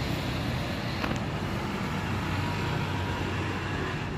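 Steady rumble of road traffic, an even wash of engine and tyre noise with no single vehicle standing out.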